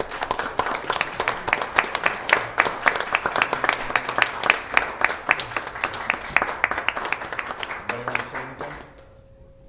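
A roomful of people applauding, dense clapping that thins out and stops about nine seconds in.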